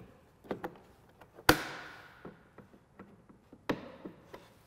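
Sharp plastic clicks and taps as push-dart fasteners are pried out of a snowmobile's intake plenum. The loudest click comes about a second and a half in and rings on briefly, with another near the end.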